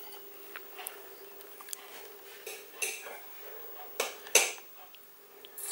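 Scattered light knocks and clinks of kitchenware being handled, the loudest two about four seconds in: a stainless steel saucepan set down on the stove and a plastic measuring jug of milk picked up and moved.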